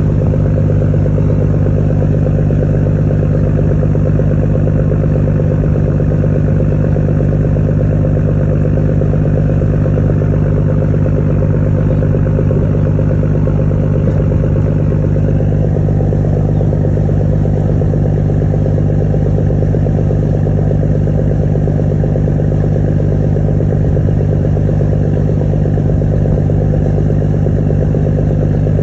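A ferry's engines droning steadily at cruising speed, with the rush of water churning in the wake along the hull.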